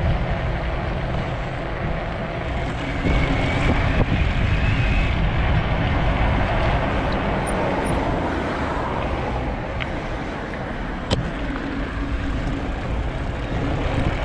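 Fat-tyre recumbent trike ridden at about 10 mph on snow and ice: a steady rumble of wind on the microphone and tyres rolling over the icy surface, with a sharp click about three-quarters of the way through.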